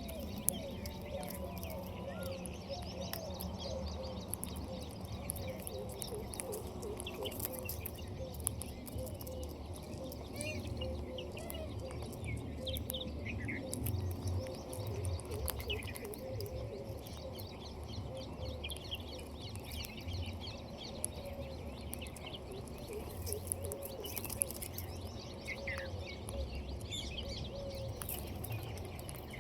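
Birds chirping and calling, many short calls overlapping throughout, over a steady low rumble.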